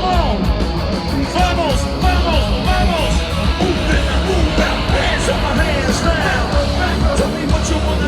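Loud live rock concert sound heard from the crowd: amplified music with a heavy pulsing bass, and voices yelling over it.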